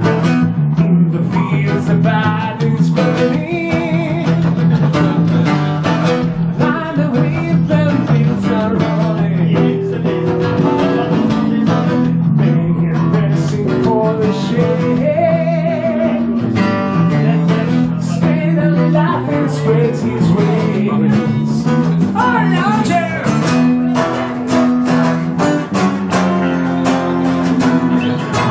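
Live acoustic rock band: several acoustic guitars strumming and picking a rock song together, steady and loud.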